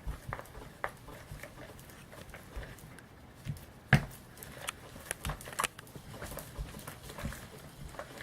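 Thickening glue slime being stirred in a bowl: irregular soft clicks and taps, with one sharper knock about four seconds in.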